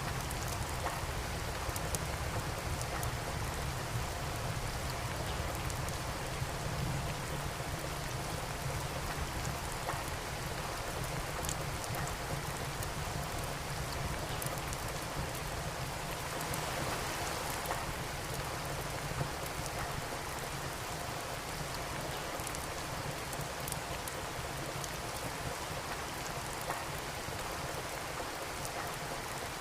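Steady rain with a wood fire crackling in a fireplace: an even hiss of rain over a low rumble, with small sharp pops from the fire scattered throughout.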